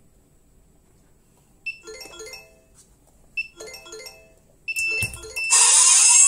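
Escape-room rope-pull switches each set off a short electronic chime tune from the prop's controller, three times about a second and a half apart. A thump follows as the magnetic lock releases, and then a loud electronic sound effect starts playing, the prop's signal that the correct pull sequence has been entered.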